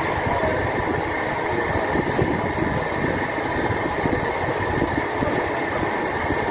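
Steady, loud background noise of a busy restaurant dining room, a constant din with faint steady tones and no clear single event.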